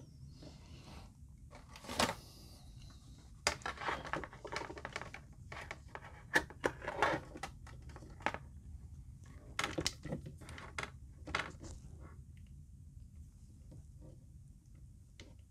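Hands handling a clear plastic blister tray and a glue tube on a tabletop: scattered clicks, taps and short crinkles of thin plastic, dying away after about twelve seconds.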